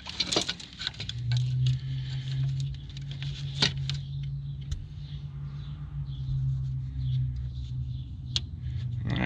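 Wiring harness and clips being handled in a truck's engine bay: light rustling and a few sharp small clicks. From about a second in, a steady low hum from an unseen machine is the loudest sound.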